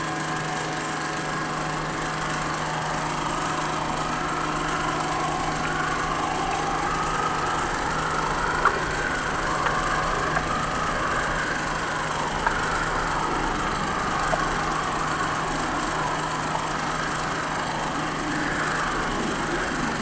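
A steady, engine-like mechanical drone: a constant low hum with several held tones above it, broken by a few faint sharp clicks.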